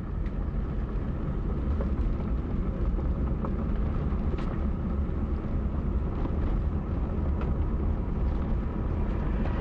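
Car driving over a rough, unpaved roadbed: a steady low rumble of engine and tyre noise with a few faint clicks. Heard from inside the moving car.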